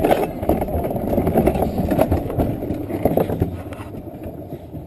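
Alpine coaster sled running fast along its metal rail: a dense rattle and rumble of wheels on the track, with many quick clicks, growing quieter near the end.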